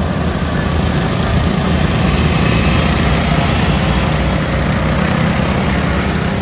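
Several racing lawn mower engines running hard together as the heat pulls away from the start, loud and building over the first couple of seconds.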